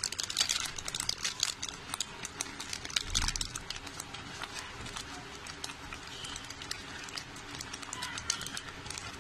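Thick tomato-onion masala gravy boiling in a kadhai, spluttering with many irregular sharp pops over a steady hiss, stirred with a spoon. A dull bump about three seconds in.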